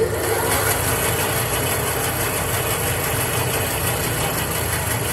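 Grob 4V18 vertical bandsaw running at its high blade speed, with a steady whir from its three-phase motor, drive and moving blade.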